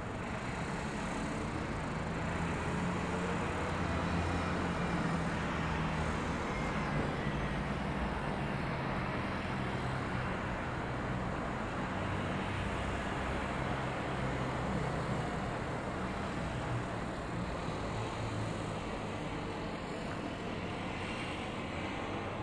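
Road traffic in the streets below: a steady hum of car and bus engines with tyre noise.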